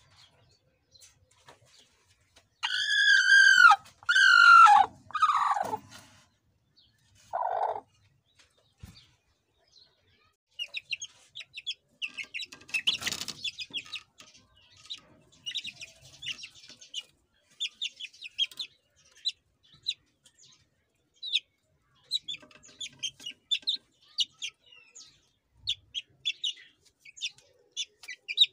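Three loud drawn-out chicken calls, each falling in pitch at its end, then a shorter, lower call. After that comes a stream of short, high peeps from young Aseel chicks about a month old.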